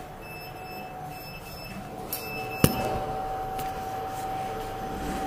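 Lift car running, heard from inside the car: a steady mechanical hum, with one sharp click about halfway through, after which a steady tone in the hum grows louder.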